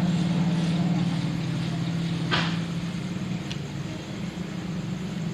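A motor vehicle's engine running nearby with a steady low hum, which fades after about three seconds. A brief sharp noise cuts in about two seconds in.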